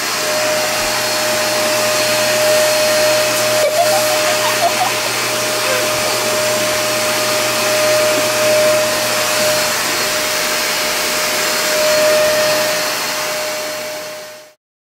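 A household appliance's electric motor and fan running steadily: an even rushing noise with a steady mid-pitched whine. It stops abruptly near the end.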